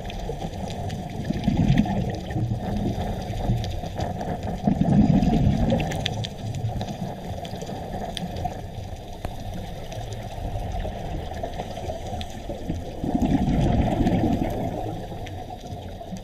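Underwater sound as heard through a diving camera's housing: a steady watery rush, swelling louder three times, about one and a half, five and thirteen and a half seconds in.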